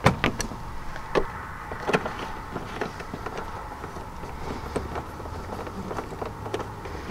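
Light clicks and taps of fingers handling a loosened 10 mm bolt and washer at the top of a pickup's headlight housing. There are a few sharper clicks in the first two seconds, then softer scattered ticks.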